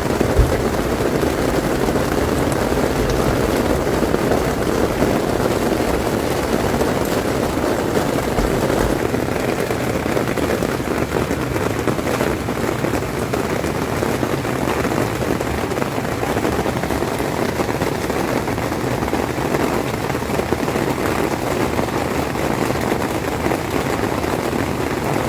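Steady, even rushing of water, heavy and unbroken, with no rhythm or pitch.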